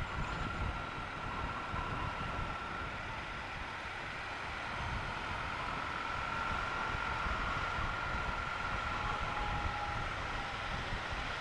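Riding a Triumph Bonneville T120: wind rushes and buffets over the microphone along with the steady running of the parallel-twin engine. A faint, steady high whine sits above it.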